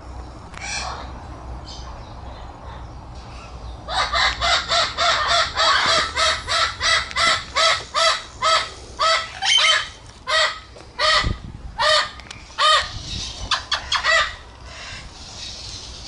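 Parrot giving a long run of loud, evenly repeated calls. The calls start about four seconds in at roughly three a second, slow to about two a second, and stop shortly before the end.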